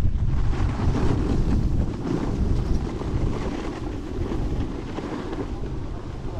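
Wind noise rumbling on the camera microphone, mixed with a snowboard sliding and scraping over packed snow.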